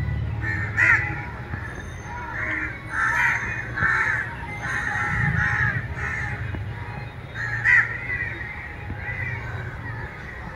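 Crows cawing again and again, a run of harsh calls with the loudest about a second in and another near the end, over a low steady rumble.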